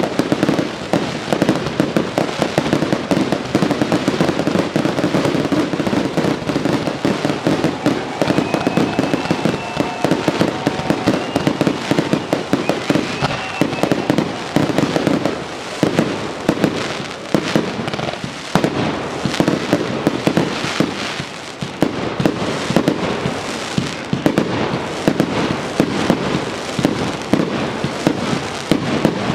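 Aerial fireworks in a dense, continuous barrage: rapid bangs and crackling bursts packed closely together, with a faint whistling tone in the middle.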